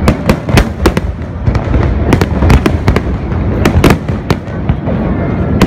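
Fireworks display: aerial shells bursting in quick succession, several sharp bangs a second over a continuous low rumble.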